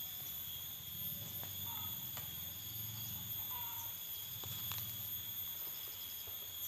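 Steady high-pitched insect drone from crickets or cicadas in the plantation trees, over a low hum, with two short faint chirps.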